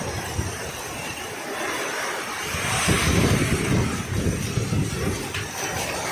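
Heavy typhoon rain pouring down, with wind gusting on the microphone in an uneven low rumble. It swells about halfway through.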